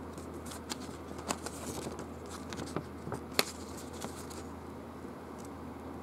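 A folded paper rules leaflet being unfolded and handled: a run of crisp rustles and paper snaps that dies away about four and a half seconds in, the sharpest snap about three and a half seconds in, over a steady low hum.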